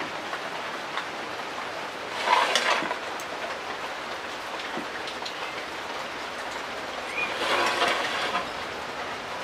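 A steady hiss of background noise that swells louder twice, once about two seconds in and again for about a second near the end.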